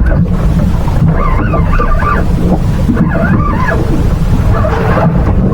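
Wind buffeting the microphone on a boat in choppy water: a loud, constant low rumble, with fainter wavering higher sounds coming and going over it.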